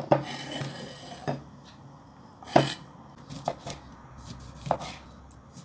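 A kitchen knife scrapes sliced tomatoes off a wooden cutting board into a glass bowl. Then the knife slices a lemon, knocking sharply on the wooden board a few times; the loudest knock comes about two and a half seconds in.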